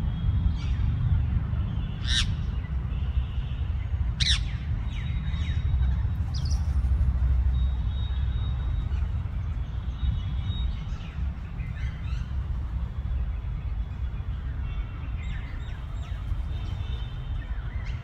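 Rose-ringed parakeets giving short, sharp screeching calls, a few times, the loudest about two and four seconds in, over a steady low rumble. The uploader takes the calls for one parakeet begging its partner for food.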